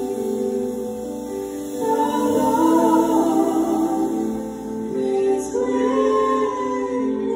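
Slow live vocal music: a woman sings long held notes into a microphone over sustained chords, her voice coming in about two seconds in.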